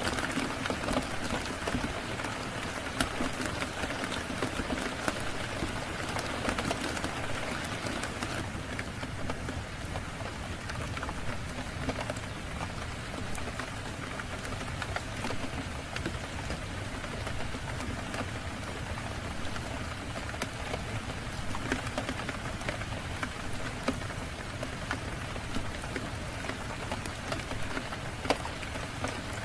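Steady rain falling on a surface, an even hiss dotted with scattered sharp ticks of drops, turning slightly duller about eight seconds in.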